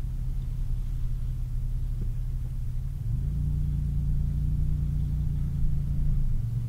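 Car engine and low rumble heard from inside the cabin while driving slowly; the engine note rises a little about three seconds in and settles back near the end.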